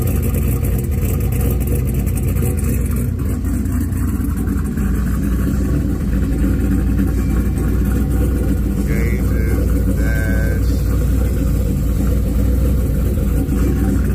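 Built LS V8 with a 76 mm turbocharger, in a Buick G-body, idling steadily.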